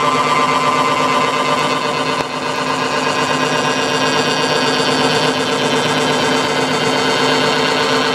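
Milling machine running with a form cutter cutting a groove into a UHMW plastic disc on a hand-cranked rotary table: a steady hum of several tones over a constant cutting noise, dipping briefly about two seconds in.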